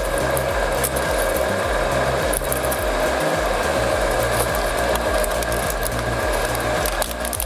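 A heavy shredding machine running with a steady drone and hiss, under background music with a stepping bass line.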